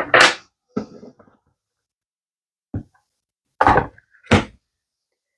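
A few short knocks and clacks as hard cured resin magnets and the mold are handled and set down on a table during demolding, the last two the loudest.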